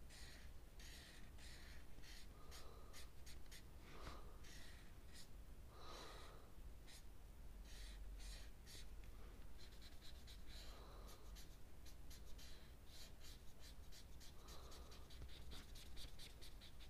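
Faint scratching of a felt-tip marker on paper in quick back-and-forth colouring strokes, the strokes coming faster from about halfway.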